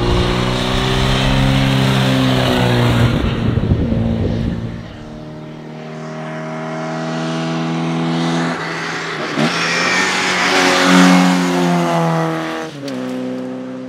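Morris Mini rally car's A-series four-cylinder engine running hard under load. It eases off about five seconds in, then pulls again, with brief dips in revs near eight and a half and thirteen seconds.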